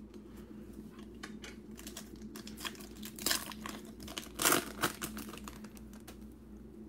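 Foil trading-card pack wrapper crinkling as it is handled and opened, with cards being slid and handled; the crackles come in scattered bursts, loudest a little past halfway.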